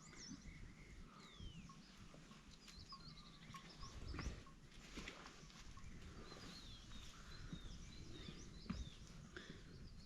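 Faint birdsong of many short, quick chirps and whistles, with a few soft knocks; the sharpest knock comes near the end.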